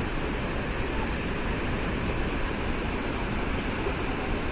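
Steady rush of the Webuye (Nabuyole) waterfall: a dense, even roar of falling water from deep rumble up to hiss.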